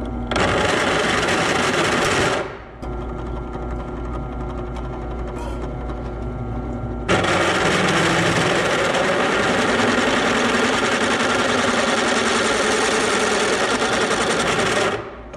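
Drill press boring out the hole in a thick steel leaf-spring block with a large drill bit: loud cutting for about two seconds, then only the motor running for several seconds, then loud cutting again from about seven seconds in until just before the end.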